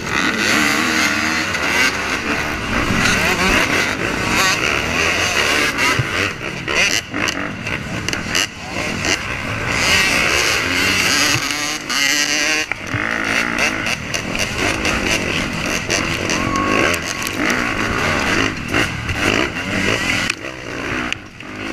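Dirt-bike engines revving hard, the rider's own bike loudest, its pitch climbing and dropping again and again through the gears, heard from a helmet camera. The noise starts abruptly at once, as the pack pulls off the start line and heads onto a rough trail.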